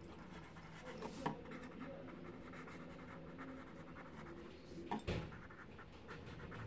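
Faint scratching of a pen writing words by hand on paper, with two sharp taps, about a second in and again around five seconds in.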